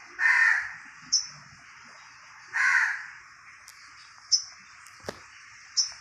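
Birds calling: two loud harsh calls about two and a half seconds apart, and three short sharp high chirps between them, over a steady high hiss.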